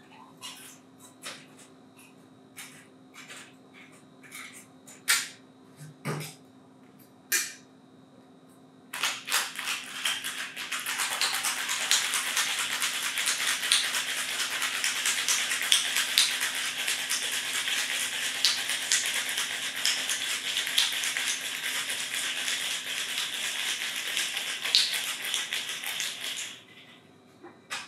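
Ice rattling hard inside a metal cocktail shaker in a fast, continuous shake that starts about nine seconds in and stops near the end. Before it there are scattered light clicks and taps.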